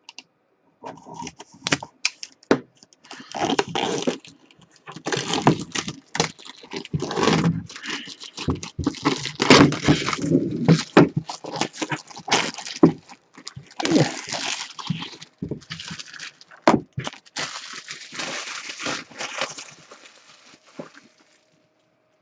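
Plastic shrink wrap being torn off a sealed box and crumpled: irregular crinkling and rustling with sharp crackles, thinning out near the end.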